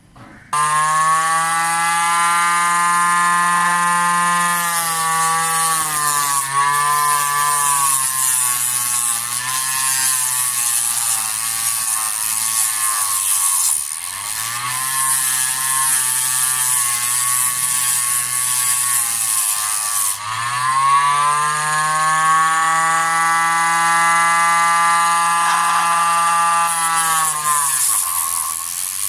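Homemade disc sander's 775 DC motor spinning a sanding disc with a loud, high whine that starts abruptly about half a second in. A chipboard piece is sanded against the disc with a hiss, and the motor's pitch sags and recovers several times as it takes the load, dropping most sharply around two-thirds of the way through.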